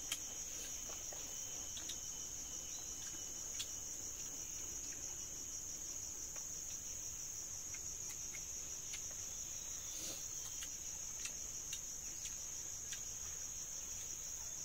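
Insects chirring in a steady high-pitched chorus, with a few faint ticks scattered through.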